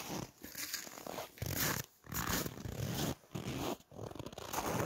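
Footsteps of heavy winter boots crunching through deep snow, a series of steps with short gaps between them.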